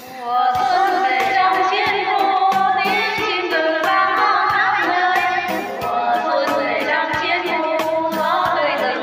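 Women's voices singing a Vietnamese song together over a backing track with a steady beat; the singing comes in right at the start, after an instrumental intro.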